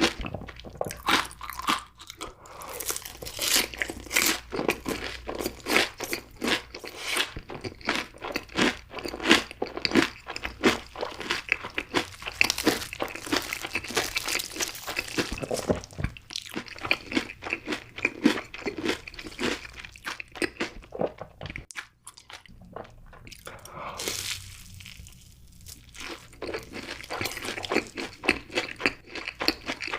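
Close-miked crunching and chewing of crispy fried food, dense irregular crackling bites, dropping briefly quieter twice in the second half.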